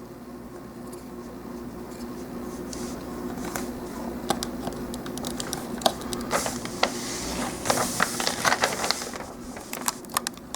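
Plastic model kit parts of a High Grade Gundam GP01 leg being handled and pressed together: a run of small plastic clicks and scrapes, thickest about six to nine seconds in, over a steady low hum.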